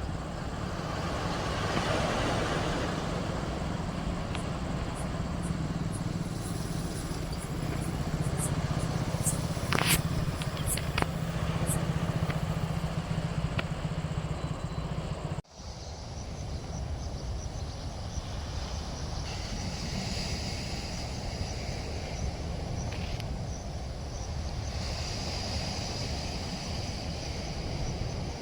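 Steady rushing roar of heavy floodwater, with a run of sharp clicks in the first half and a brief dropout a little past halfway.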